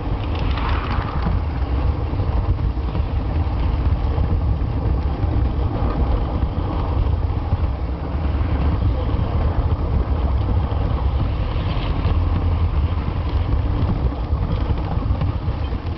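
Steady rumble and rattle of a G scale model train running on its track, picked up through a camera riding on a flat car pushed by the locomotive.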